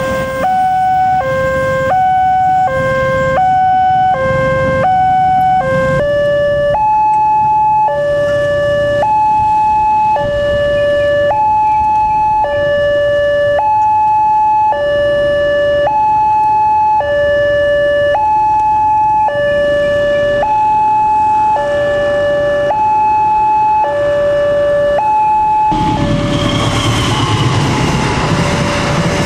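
Electronic level-crossing warning alarm from the signal post's horn loudspeaker, sounding an alternating high-low two-tone. About one high-low cycle a second at first, then from about six seconds in a slower, slightly higher pair of tones. Near the end a passenger train passes with a rumble of wheels on rails while the alarm keeps sounding.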